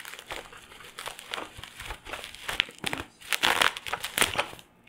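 Plastic bubble wrap crinkling and crackling as it is handled and pulled off a small cardboard box, in irregular sharp crackles that grow denser and louder from about three and a half seconds in.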